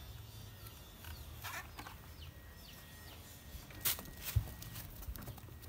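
Handling noise as a hand reaches out and touches a sheep's fleece: two sharp knocks about four seconds in, over a low background hum with a few faint high chirps.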